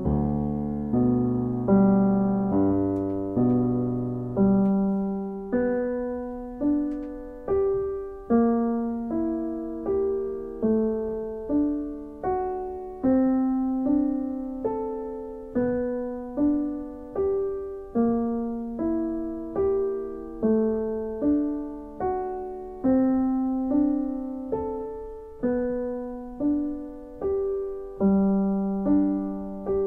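Background music: slow solo piano, a note or chord struck about once a second and left to ring down.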